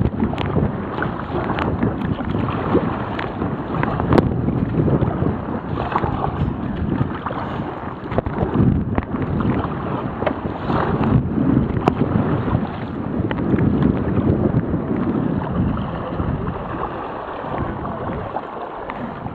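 Strong wind buffeting the microphone of a waterproof camera, over water sloshing and splashing around a sea kayak, with a few sharp knocks.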